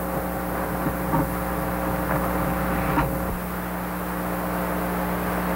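Steady room hum with several constant low tones, with a few faint knocks and shuffles about one, two and three seconds in as people move at their benches.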